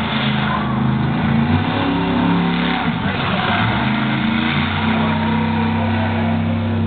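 Star Marshall monster truck's engine revving up and down as the truck drives over the dirt, then holding a steady high pitch from about halfway.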